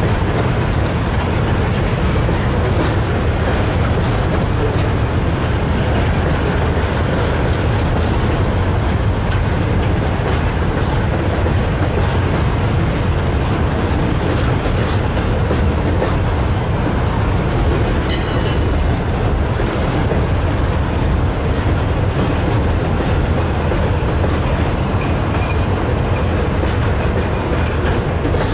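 Freight train cars rolling past close by: a steady, loud rumble of wheels on rail. Brief high-pitched wheel squeals break through several times.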